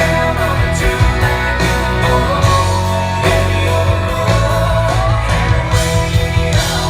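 Live country-rock band playing an instrumental passage of the song, guitar over a steady bass and drum groove, with no vocals.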